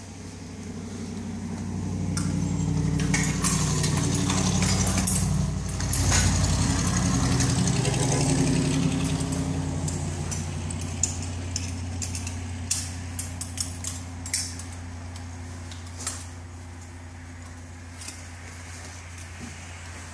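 A low engine-like hum that swells louder for several seconds and then eases, followed by a run of sharp clicks and clinks as metal buckles and clips on firefighter turnout gear and SCBA harness straps are fastened.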